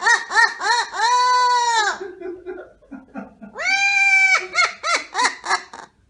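Amazon parrot laughing like a cartoon villain: quick repeated 'ha' notes, then a long drawn-out high note, a quieter low stretch, and another long note followed by more quick 'ha' notes.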